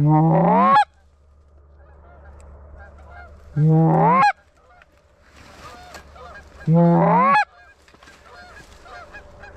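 Goose call blown in three loud, long honks about three seconds apart, each starting low and sweeping up in pitch, with fainter honking between them.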